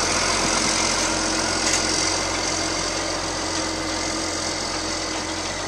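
An engine idling steadily, with a low hum and a steady tone that cuts out shortly before the end.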